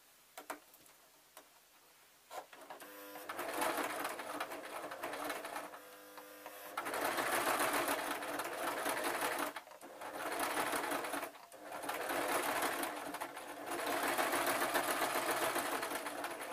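Electric domestic sewing machine stitching through fur fabric. A few light clicks come first, and the machine starts running about two and a half seconds in. It then sews in several stretches of a few seconds each, with short stops in between.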